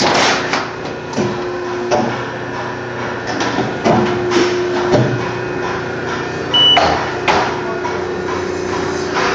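CNC press brake running through a multi-bend cycle on stainless steel: a steady machine hum that stops and restarts, with a clunk every one to two seconds as the ram strokes and the part is repositioned. A short high beep about two-thirds of the way through.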